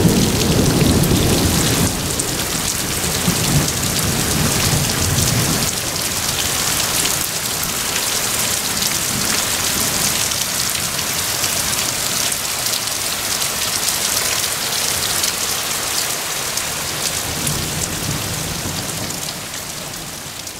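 Heavy thunderstorm rain pouring down steadily, with a low rumble of thunder in the first few seconds that dies away. The sound fades out near the end.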